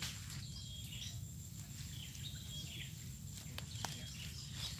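Short, high chirps of wildlife repeating every half second to a second over a steady low rumble. Near the end come a few sharp snaps of dry leaves and twigs underfoot as a person stands and steps in leaf litter.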